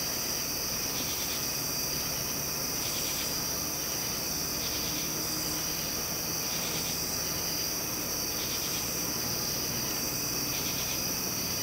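Night insects, crickets, chirping steadily: one continuous high-pitched trill, with a second pulsing chirp repeating a little more than once a second.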